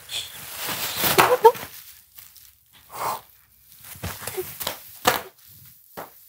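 Bubble wrap crinkling and rustling as two people wrapped in it push against each other and step on more of it. Several sharp pops come in the second half.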